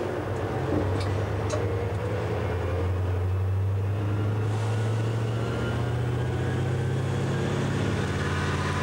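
DSB MK-class diesel shunting locomotive's engine running steadily with a low drone as it moves with a rake of freight wagons.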